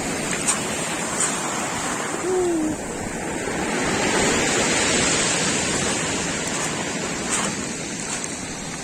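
Black Sea surf washing onto the shore, a wave swelling and breaking about halfway through.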